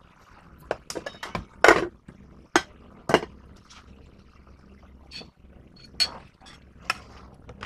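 Scattered sharp knocks and clinks of dishes and utensils being handled, the loudest about two seconds in.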